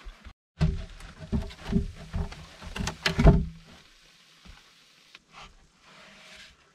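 Irregular wooden knocks and thumps of logs being shifted and pressed into place in a log wall, loudest about three seconds in, then fading to faint handling and rustling.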